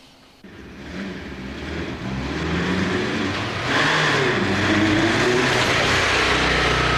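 Motorcycle engine running and getting louder as it rides closer, from about half a second in, its pitch rising and falling with the throttle.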